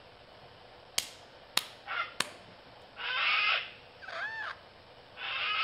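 A wombat hissing in harsh, breathy bursts, the loudest about three seconds in and another near the end, after three sharp clicks in the first two seconds. Between the hisses comes a short cry that rises and falls.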